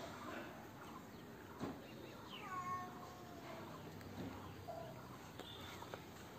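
Cat meowing: one long meow about two seconds in that falls in pitch and then levels off, and a short, fainter meow nearly five seconds in.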